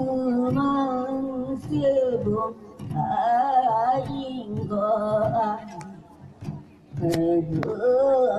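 A folk song sung into a microphone over a PA, the voice holding long, wavering notes, with steady low beats from barrel drums beneath it. The singing breaks off briefly about six seconds in and picks up again near the end.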